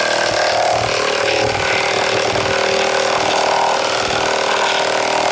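Milwaukee 2967-20 high-torque impact wrench hammering steadily at speed 3 as it drives a 10-inch by half-inch lag screw, working under load.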